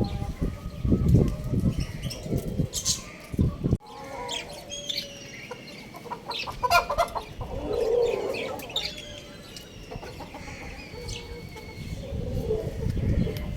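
Young rooster and chickens clucking and chirping, with short high chirps and small gliding calls. Several low thuds come in the first four seconds, before a sudden break.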